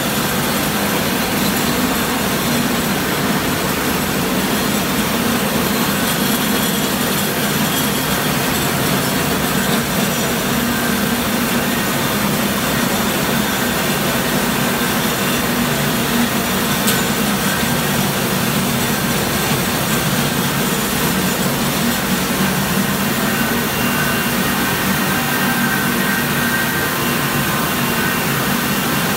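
A 30–40 tonne-per-day rice mill production line running: a steady low hum under an even rushing clatter of its motors, fans and milling machines.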